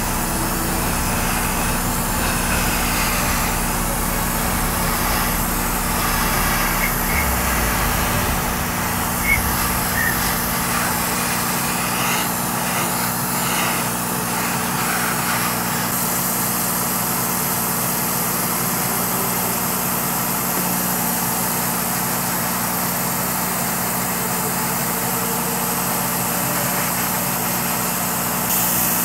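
Airbrush spraying primer with a steady air hiss over a constant motor hum from the spray booth fan or compressor; the hiss grows stronger about halfway through.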